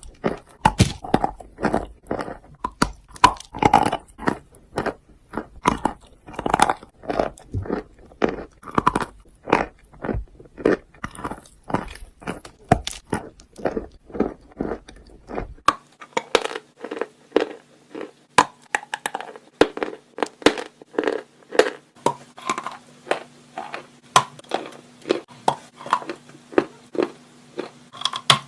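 Wet chalk being bitten and chewed close to the microphone: a run of crisp crunches, about two to three a second. A faint steady hum joins about halfway through.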